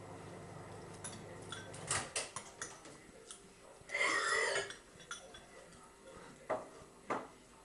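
Spoons clinking and scraping against cereal bowls as cornflakes are eaten, a scattering of sharp clicks, with a louder short noisy sound about four seconds in. A faint low hum stops about two seconds in.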